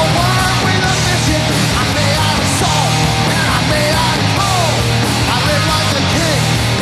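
Live hard rock band playing loud with electric guitars, bass and drums, with short sliding pitch lines repeating over the steady wall of sound.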